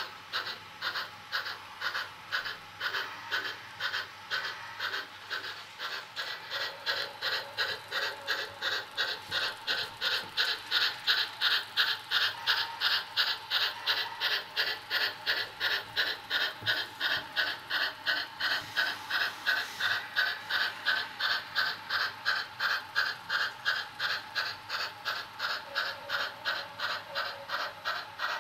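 HO-scale model steam locomotive's onboard sound unit chuffing steadily as the train runs, about three chuffs a second, loudest around the middle.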